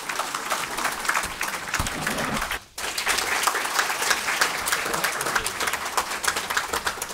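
Audience applauding: dense, steady clapping from many hands. It cuts out for a moment about two and a half seconds in.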